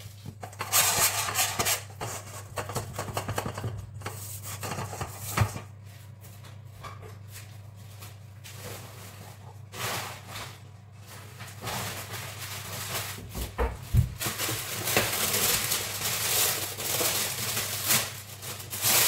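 Butter being rubbed by hand around the inside of a cake tin: irregular rubbing and scraping with small knocks, busiest near the start and again in the last few seconds, over a steady low hum.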